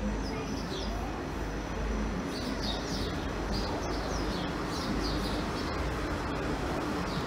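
Small birds chirping repeatedly in short, falling chirps over a steady low rumble from trains moving through the station.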